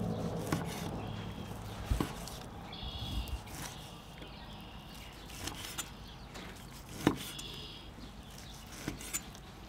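Long butcher knife slicing a smoked tri-tip on a wooden cutting board. The cuts are quiet, with a few sharp knocks of the blade against the board, the loudest about two seconds and seven seconds in.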